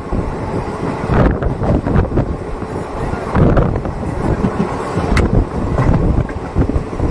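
Passenger train running, a steady rumble with wind buffeting the microphone and a sharp click about five seconds in.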